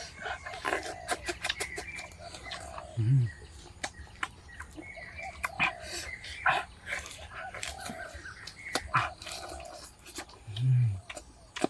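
Birds calling outdoors, a short arched call repeated every few seconds among other chirps, with scattered sharp clicks and knocks. A short low sound comes twice, about three seconds in and again near the end, louder than the rest.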